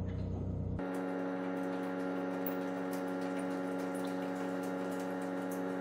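A small electric motor whines at a steady, unchanging pitch, starting abruptly about a second in, with a low steady hum before it.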